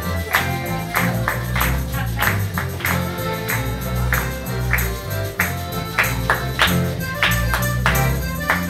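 Live ensemble of accordion and guitars playing a lively tune, with tambourines and other hand percussion struck in a steady rhythm.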